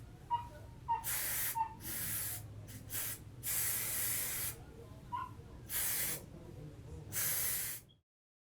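Aerosol spray can sprayed in short bursts, about eight hisses of different lengths with one longer spray of about a second in the middle. The sound cuts off abruptly near the end.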